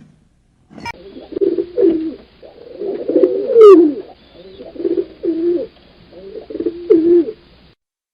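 Pigeon cooing: a run of low, wavering coos repeating for several seconds, with a sharp click shortly before the first coo.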